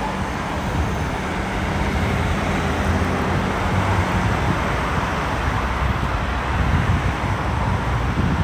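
Road traffic on a multi-lane city street: cars and a van driving past, a steady hum of engines and tyres.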